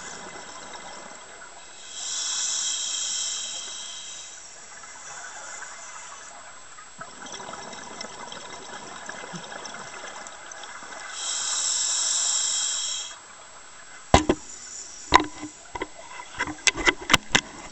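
A scuba diver's regulator heard underwater: two louder rushes of exhaled bubbles, each about two seconds long and about nine seconds apart, over a steady hiss. Near the end comes a quick run of sharp clicks and knocks.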